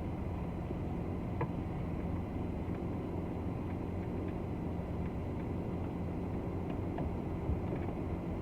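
Car engine running, heard from inside the cabin as a steady low hum, with a faint click about a second and a half in.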